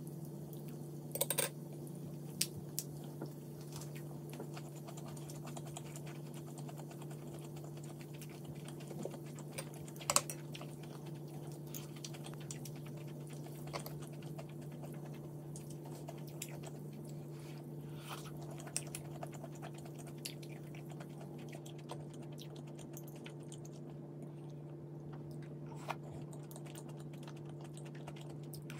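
Someone eating at a table: chewing, with scattered sharp clicks of chopsticks and a spoon against dishes, the loudest about a second in and again around ten seconds. A steady low hum runs underneath.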